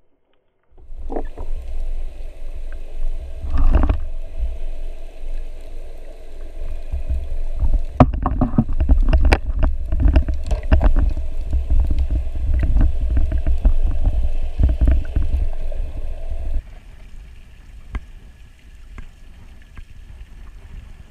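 Muffled underwater rumble of water moving around a GoPro housing as a spearfisher swims up with a speared dentex, broken by many sharp knocks and clicks from the fish, spear shaft and gun being handled. About sixteen seconds in it gives way suddenly to a quieter, steady wash of wind and water.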